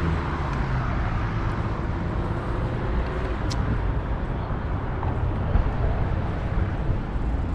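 Road traffic noise: cars passing on the street, a steady hiss of tyres over a low rumble.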